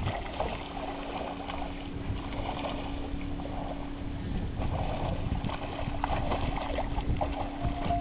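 Water splashing and sloshing in uneven soft bursts, over a steady low hum that runs throughout.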